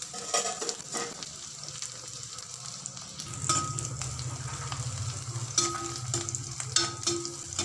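Garlic cloves sizzling steadily as they fry in hot sesame oil in a kadai, with a spatula scraping through them in several short strokes.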